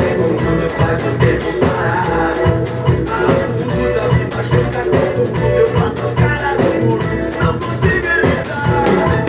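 Upbeat Brazilian axé music with a drum kit played along to it, a steady beat of drum and cymbal hits over the recorded band.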